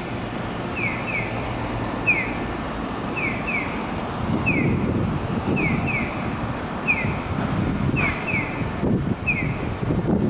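Japanese pedestrian-crossing audio signal chirping the electronic 'piyo' bird call: short high falling chirps in a repeating two-then-one pattern. Beneath it runs steady street and tram noise, heavier from about halfway through.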